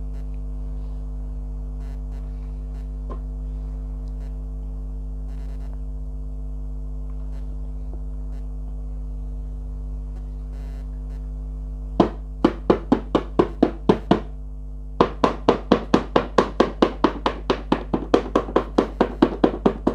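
Steady background music with sustained tones. About twelve seconds in, a rapid, even ticking of about five clicks a second starts, like a spinning prize wheel's pointer, stops briefly and resumes until the end.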